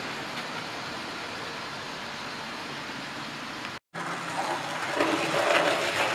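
Model railway trains running on the track: a steady rushing hiss of wheels and motors, cut off briefly about four seconds in. Then a small tank engine's motor and wheels come up louder with a whirring hum as it runs close by.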